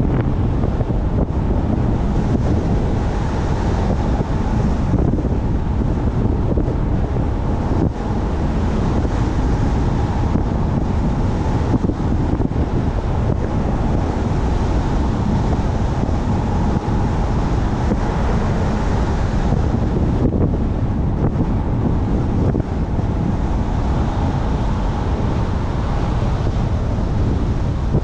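A car driving at a steady pace, with continuous low rushing wind and road noise on the microphone and a faint steady tone running through it.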